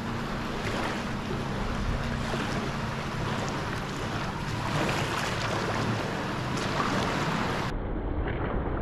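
Wind buffeting the microphone over small waves lapping in shallow water, a steady rushing noise. A low steady hum runs under it for the first few seconds.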